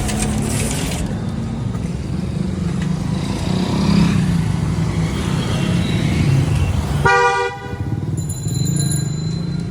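Roadside traffic running steadily, with a vehicle horn honking once for about half a second about seven seconds in, followed by a thin high ringing tone.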